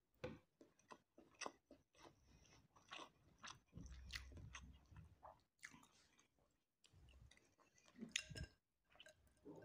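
Close-miked chewing of a mouthful of kabsa rice: irregular wet mouth clicks and smacks. A sharper knock comes about eight seconds in.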